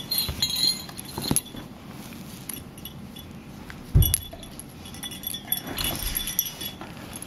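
Two puppies play-wrestling: a metal chain collar and tags jingling and clinking in short bursts as they move, with one dull thump about four seconds in.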